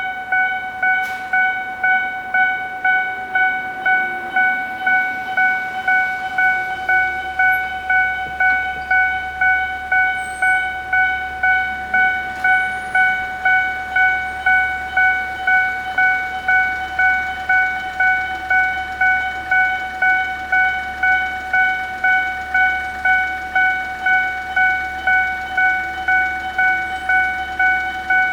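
Japanese railway level-crossing warning bell, an electronic ding repeating steadily about one and a half times a second at a calm-sounding, unchanging pitch: the signal that a train is approaching and the crossing is closing. A low rumble joins about seven seconds in.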